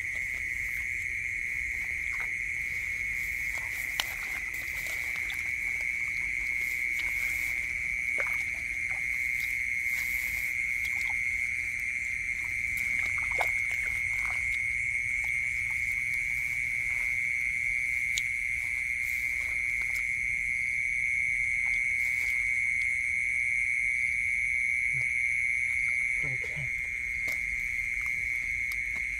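A rice paddy's night chorus of calling animals: a steady, unbroken high-pitched drone with fainter higher trills over it. Small scattered wet squelches and splashes come from hands working in shallow mud and water.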